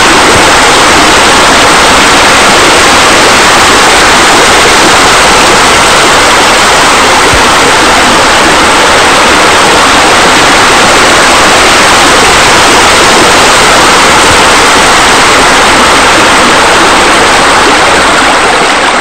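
Loud, steady rush of falling water, like a waterfall or pool spillway, fading out near the end.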